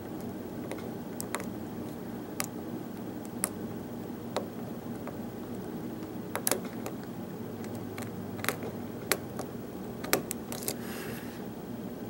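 Light, irregular metallic clicks of a lock pick working the pin stacks of a pin-tumbler knob cylinder held under a tension wrench, as pins are lifted and set one by one, with a brief rustle of handling near the end.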